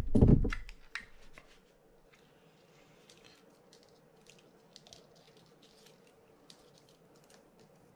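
A knock as the brass spool of a Penn International 12H reel comes free of the reel, the loudest thing here, followed by faint scattered clicks and rustles of fingers handling the spool and its fishing line.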